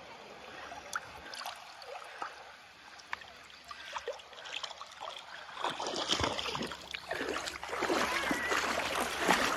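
Shallow seawater splashing and sloshing around wading feet. It starts faint with small scattered splashes and grows louder and busier about halfway through.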